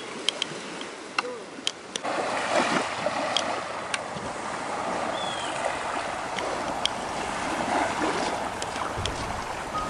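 Small waves washing on a pebble shore, a steady hiss that gets louder about two seconds in, with scattered clicks of footsteps on pebbles and sand.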